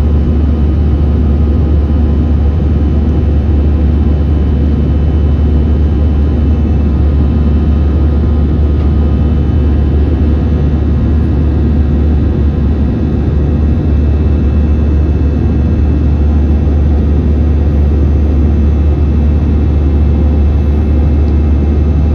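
Steady jet engine and airflow noise inside the cabin of an Airbus A321 in its climb after takeoff: a loud, even, deep rumble with faint steady tones above it.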